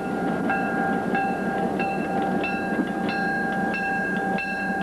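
Diesel switcher locomotive's bell ringing steadily, about one clang every two-thirds of a second, its tone hanging on between strikes, over a steady rumble.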